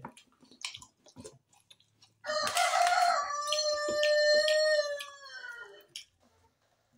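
A rooster crowing once: one long call of about three and a half seconds, starting about two seconds in and dropping in pitch at the end. Before it, a few light clinks of a spoon against a steel bowl.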